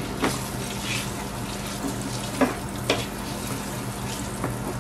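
Melted butter and herbs sizzling in a stainless steel frying pan while a wooden spatula stirs and scrapes through it. The spatula knocks sharply against the pan about a quarter second in and twice between two and three seconds in, over a steady low hum.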